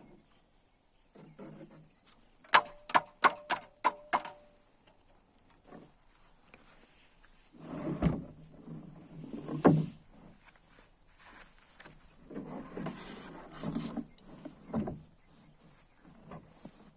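A metal part is tapped six times in quick succession, each strike with a short ring. After that come irregular knocks, scrapes and handling noises from working on metal parts.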